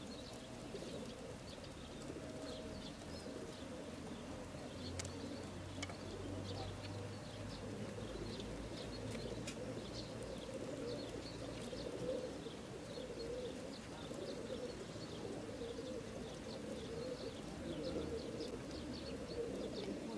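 A chorus of many racing pigeons cooing together inside the crates of a transport truck, a steady dense murmur, with short high chirps of small birds scattered over it.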